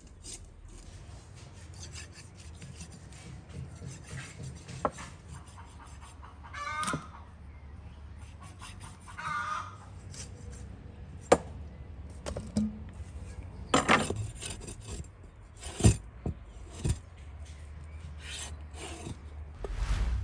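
A large knife sawing and scraping through a raw lamb carcass, meat and fat rubbing against the blade, with several sharp knocks as the blade strikes bone or the board.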